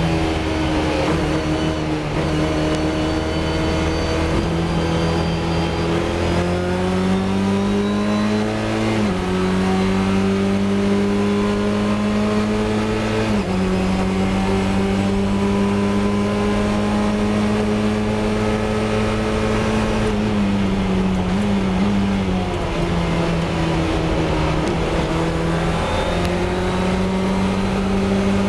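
Fun Cup racing car's engine heard from inside the cockpit, running hard under load with its pitch climbing, stepping down slightly at upshifts about nine and thirteen seconds in. Around twenty seconds in the pitch falls and wavers as the car slows, then it climbs again under acceleration near the end.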